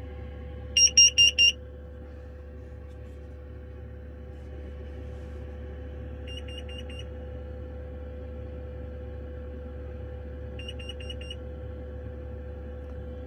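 FireAngel carbon monoxide alarm sounding its pattern of four rapid high beeps: one loud group about a second in, then two quieter groups near six and eleven seconds. It is triggered by a dangerous carbon monoxide level of 154 ppm, which builds up in the van while the diesel heater runs. A steady low hum runs underneath.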